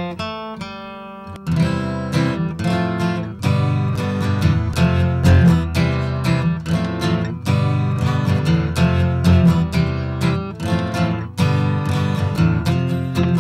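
Background music: acoustic guitar strumming a quick rhythm, softer for about the first second and a half and then fuller.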